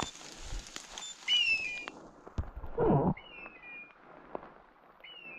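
Hunting dog's beeper collar sounding the same short, high electronic chirp about every two seconds. A brief, louder knock and rustle comes about halfway through.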